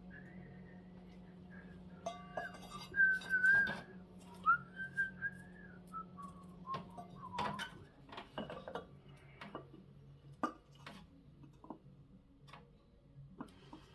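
Someone whistling a wavering tune for about the first half, then scattered light metallic clinks and taps of parts and tools being handled, over a faint steady low hum.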